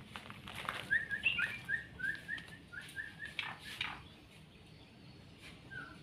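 Yellow-vented bulbul (trucukan) calling: a quick run of about ten short chirps lasting about two seconds, then one more note near the end, with a couple of short swishes around the run.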